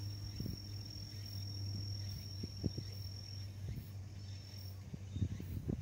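An insect singing one steady high-pitched note that breaks off about three and a half seconds in and returns briefly, over a low steady hum and a few soft thumps.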